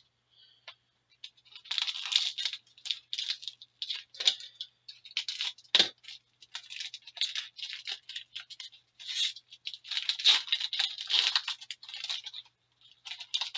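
Foil wrapper of a hockey card pack being torn open and crinkled, in irregular crackling bursts, with one sharp knock about six seconds in.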